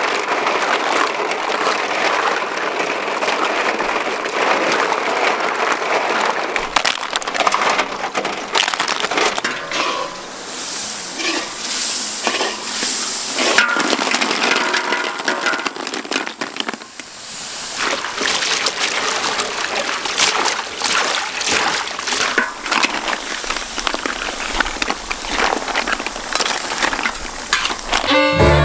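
Hands washing a basin of live snails in water, the shells clinking and the water splashing, then the snails tipped into hot oil in a large wok, sizzling with the shells clattering against the metal.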